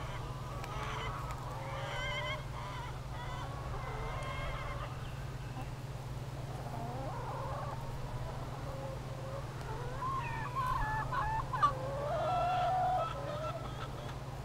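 Free-range hens clucking and calling, scattered calls throughout, with a louder run of calls about ten seconds in. A steady low hum lies underneath.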